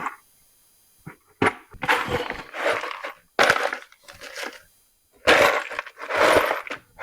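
Rummaging through stored hardware in search of stainless bolts: a run of short bursts of rustling and clattering, bags and small metal parts being handled, with brief pauses between.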